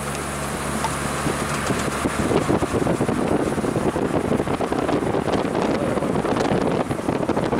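Moving car heard from inside, through an open side window: wind rushing in and buffeting the microphone over engine and tyre noise. A steady engine hum is plain for the first two seconds, then the wind buffeting grows louder.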